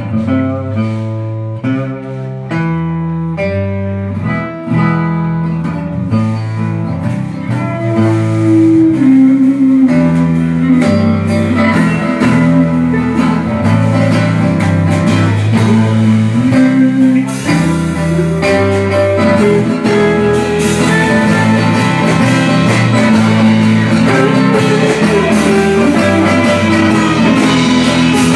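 Live band playing an instrumental break: acoustic guitar and banjo picking with drums. The playing grows louder and fuller about ten seconds in.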